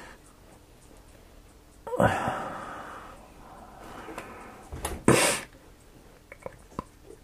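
Handling noise from a plastic action figure being turned in the hand: a rustle about two seconds in and a few light clicks near the end, with a short, loud breath sound about five seconds in.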